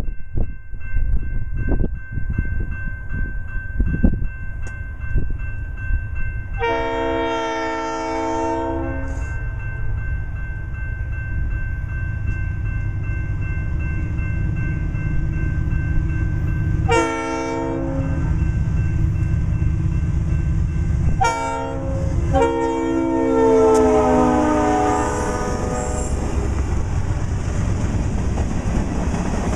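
Freight train's locomotive air horn sounding four blasts over the rumble of the approaching locomotives: a long one, two short ones, then a long drawn-out one. Near the end the tank cars roll past with their wheels clicking over the rail joints.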